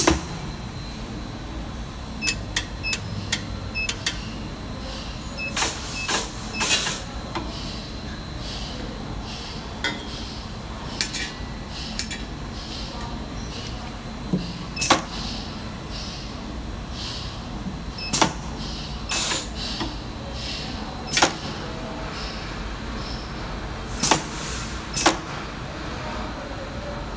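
Single-wire forming and binding machine running: a steady motor hum with a faint high whine, broken by irregular sharp metallic clacks, some in quick clusters.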